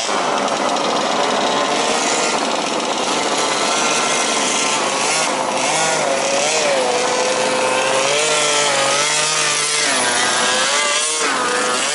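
Several 1/5-scale RC Baja buggies' small two-stroke petrol engines running together, their pitch rising and falling as the throttles are worked.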